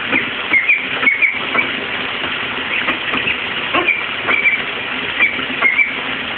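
Tap water running steadily into a bathtub, with short high bird peeps coming irregularly every half second to a second.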